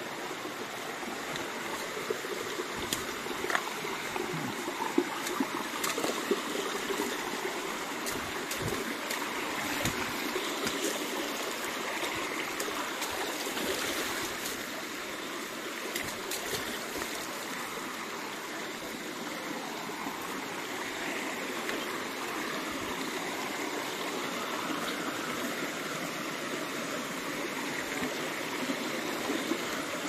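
Stream water rushing steadily, with a few sharp clicks and knocks scattered through the first half.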